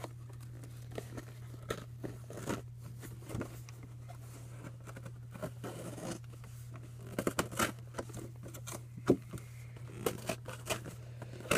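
Cardboard of a cereal box being cut and torn: irregular short scrapes, crunches and crackles, coming thicker and louder in the second half.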